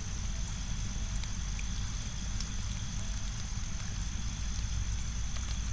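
Steady rain-sound track blended with deep brown noise: an even wash of falling rain over a constant low rumble, with two faint steady high tones above it.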